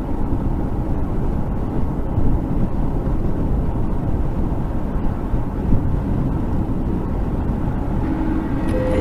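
Steady road noise heard from inside a car cruising at highway speed: a constant rumble of tyres and engine.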